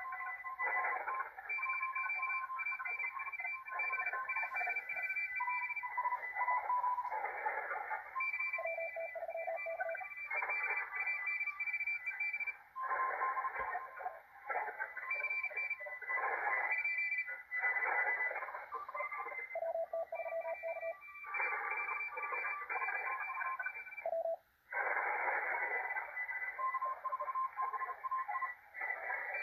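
Malachite DSP SDR receiver playing a 40-metre CW pileup: many overlapping Morse code tones at different pitches keyed on and off at once over band hiss. The signals are too crowded for the receiver's CW decoder to read.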